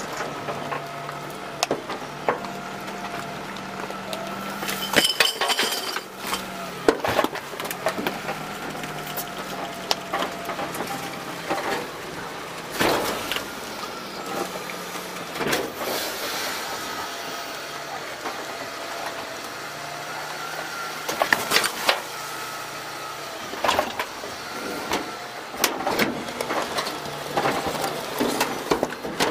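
DaDee Scorpion full-eject automated side loader's hydraulics whining as the packer panel cycles through the hopper, the pitch rising and falling. Loud clunks and clatter of metal and trash come several times.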